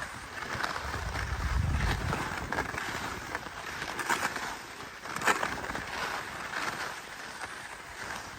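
Riding a ski rope tow: skis sliding over snow while the tow rope runs, with a low rumble early on and two sharp clicks about four and five seconds in.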